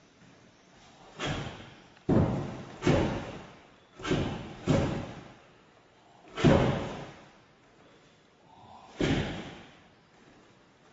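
Seven sharp thuds from a karateka's kata techniques, barefoot on a wooden floor, each ringing out in a reverberant hall. The first comes about a second in, four follow in quick succession, and the last two are spaced further apart.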